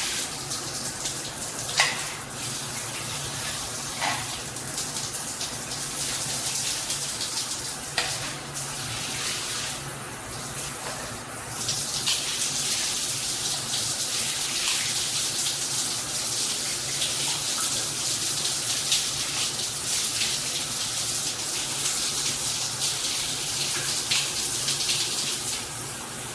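Water spraying steadily from a dual rain and handheld shower head as a loud hiss. There are a few short clicks about 2, 4 and 8 seconds in, and the spray's sound shifts about halfway through as the spray setting is changed.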